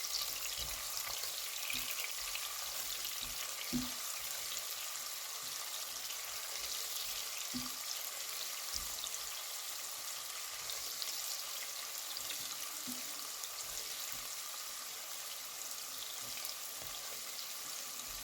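Chopped onions sizzling steadily as they fry in hot vegetable oil in a saucepan, with a few soft knocks of the spoon as they are stirred.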